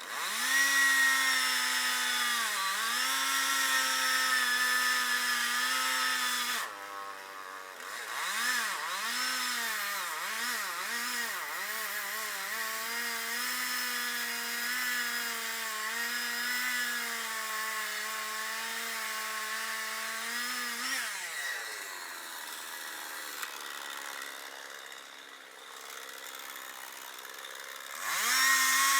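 Two-stroke chainsaw running at full revs and cutting wood, its pitch sagging and recovering as the chain bites. It drops off about a quarter of the way in, blips up and down, and runs steady again. Two-thirds through it falls to a quieter low speed, then revs up loud again near the end.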